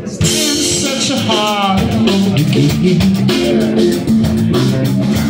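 Live trio band playing a rock song with guitar and drums, in a stretch between sung lines.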